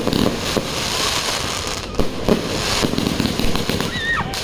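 A 128-shot firework cake firing in rapid succession: continuous popping and crackling, with sharper bangs about two seconds in.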